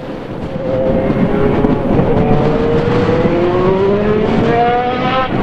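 IndyCar's Honda V8 racing engine at high revs on track, getting louder over the first second. Its note climbs, drops a little past halfway, and then climbs again.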